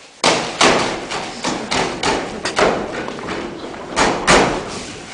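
A rapid, irregular run of loud thumps and knocks on a wooden table-top, more than a dozen of them. It starts suddenly, and the hardest hits come right at the start and again about four seconds in.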